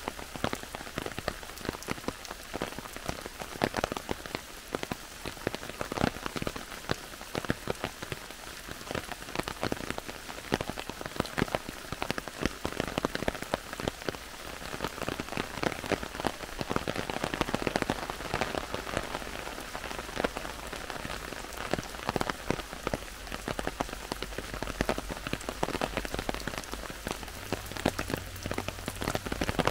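Heavy rain falling in a forest: a steady hiss of rainfall thick with many sharp individual drops striking.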